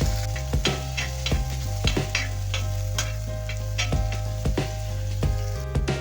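Onions and shallots sizzling in hot oil while they are stirred, the stirring utensil knocking and scraping against the pan several times a second.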